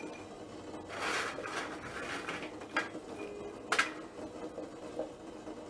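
Roasted cashews handled by hand in a steel plate of salt and dropped into a glass bowl: a scraping rustle about a second in, then a few light clicks of nuts landing, the sharpest just past the middle.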